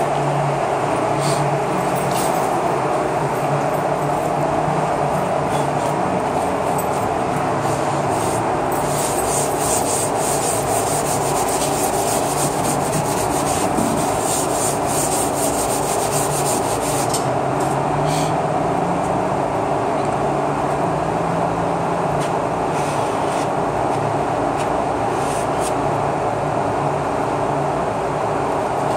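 Plastic spreader scraping Evercoat Rage Gold lightweight body filler: first working it on a mixing board, then spreading it over a 2015 Ram 3500's door panel in repeated strokes, thickest in a stretch near the middle. A steady loud drone of shop noise runs underneath throughout.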